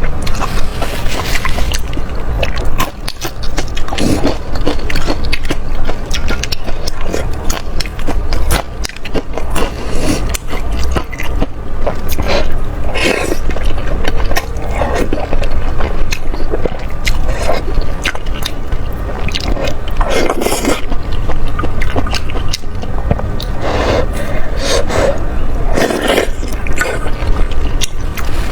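Close-miked eating sounds: chewing and biting through spicy noodles and dumplings, with a dense run of small wet clicks and crackles. A steady low rumble sits underneath.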